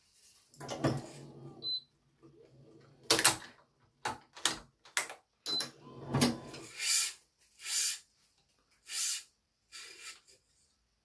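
Badminton racket being restrung with BG80 string: a series of a dozen or so short rasping pulls as the string is drawn through the frame, mixed with clicks and knocks from the stringing machine, one sharp click about three seconds in.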